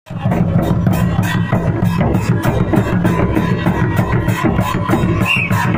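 An Indian folk instrument played in a fast, even rhythm over a steady low drone, starting abruptly at the very beginning.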